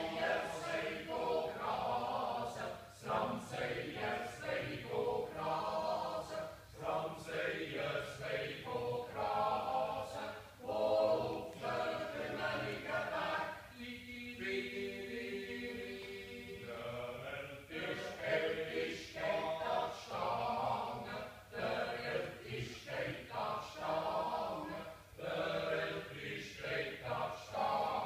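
Swiss yodel club choir, mostly men's voices with one woman, singing a folk song a cappella in several parts. The singing runs in phrases with short breaths between them, and a long chord is held about halfway through.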